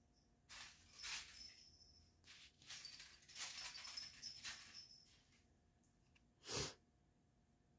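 Small bell jingling in irregular short bursts for several seconds as a kitten moves, then a single dull thump about six and a half seconds in.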